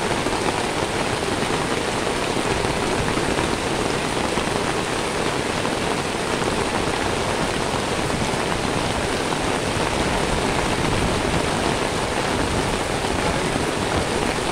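Heavy rain falling steadily on a wet paved surface.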